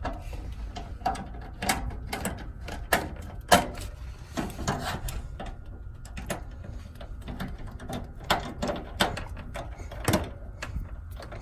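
Screwdriver tightening the screws of a refrigerator's rear service panel: irregular clicks and small knocks as the screws are turned and seat.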